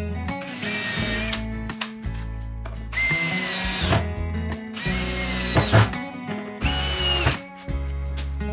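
Power drill running in several short bursts, its motor whine dropping as each burst stops, over background music.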